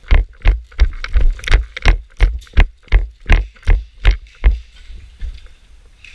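Running footsteps jolting a body-worn camera: about three heavy thuds a second, evenly paced, for some four and a half seconds, then fainter and uneven.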